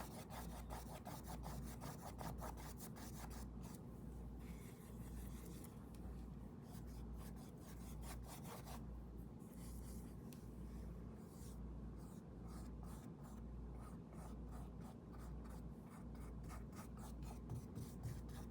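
Paintbrush scrubbing paint onto canvas in quick repeated strokes, over a faint low hum.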